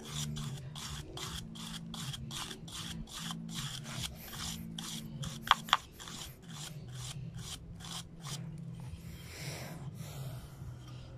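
A stiff natural-fibre hand brush (escobetilla) scrubs back and forth along a charred pine board, about three strokes a second, brushing the soot off the burnt surface. Two brief sharper scrapes come about halfway through. The brushing stops about three-quarters of the way in, and a low steady hum runs underneath.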